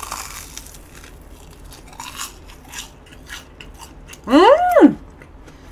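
Close-up biting and chewing of a batter-coated hot dog filled with sweet red bean paste, with soft crunches and wet mouth noises. About four seconds in comes a loud, pleased hummed "mmm!"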